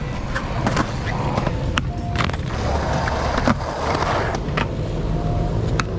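Skateboard wheels rolling on concrete with a steady rumble, broken by several sharp clacks of the board against the ground as a flatground trick is tried.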